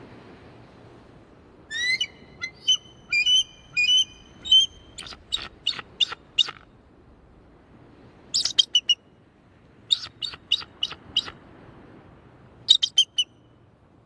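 Bald eagle calling in high, thin piping notes: a long chattering run of about ten notes starting about two seconds in, then three shorter bursts of rapid notes.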